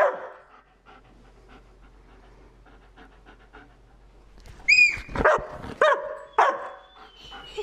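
Large dog panting quietly, then, after a short high squeal, barking three times in quick succession, about half a second apart.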